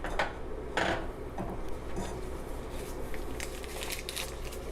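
Butter being scraped off its paper wrapper: a few short scraping strokes, then a run of small crinkles and clicks later on.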